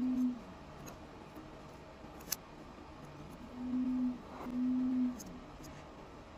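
A low steady hum comes and goes in spells of about half a second, twice near the start and twice later on, with one sharp click about two seconds in.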